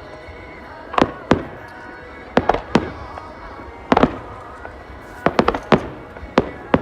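Fireworks bursting: about a dozen sharp bangs at irregular intervals, several in a quick cluster about five seconds in, over a song playing underneath.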